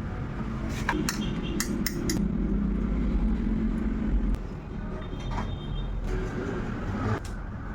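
Light metallic clinks of small parts being handled, a cluster of them about a second in and one more a little after five seconds, over a steady low rumble.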